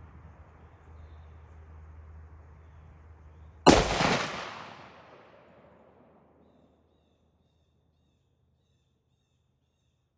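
A single shot from a .30-06 Remington 742 semi-automatic hunting rifle, a little over three and a half seconds in, its report dying away over about two and a half seconds. Before the shot there is a low steady rumble.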